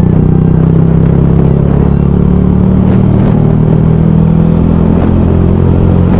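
Yamaha YZF R125's single-cylinder four-stroke engine running at a steady pitch while the bike is ridden.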